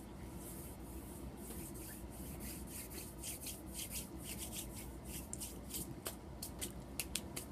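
Soft rubbing and rustling from hands moving close to the microphone, a string of short scratchy sounds that is densest in the middle.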